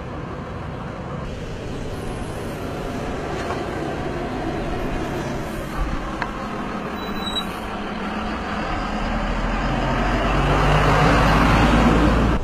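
Coach bus engine running, a steady rumble that grows louder toward the end, with a low hum coming in about halfway through.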